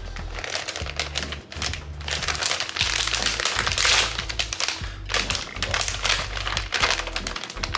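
Foil-lined plastic packaging pouch crinkling and crackling as it is torn open and handled, dense and irregular, loudest near the middle. Background music with a steady bass line plays underneath.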